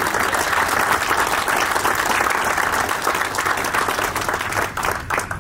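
Audience applauding, the clapping thinning out to a few separate claps near the end.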